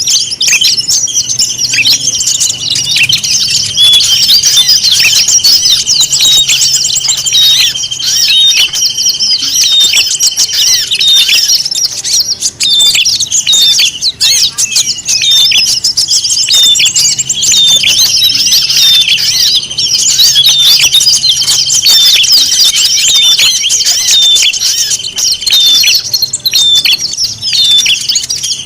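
A dense chorus of many small songbirds chattering, chirping and squawking at once: a mixed bird-lure recording meant to draw in wild birds. A long, even trill runs underneath twice, each time for about nine seconds.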